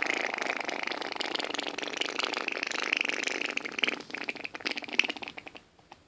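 A child blowing a long raspberry with the lips, a mouth-made fart noise. It buzzes steadily, then breaks into sputters and dies away near the end.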